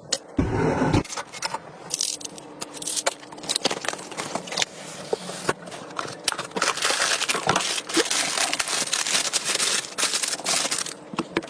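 Handling noises of PC parts being unpacked and fitted: many sharp clicks, scrapes and crinkling rustles, with a heavy low thump near the start.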